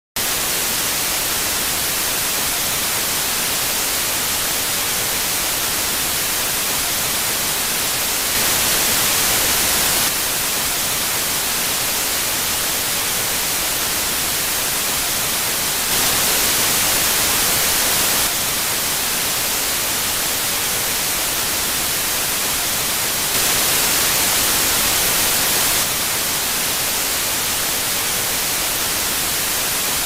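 TV static: a continuous, even hiss, brightest in the high range. It steps up a little louder for about two seconds at a time, three times, roughly every seven to eight seconds.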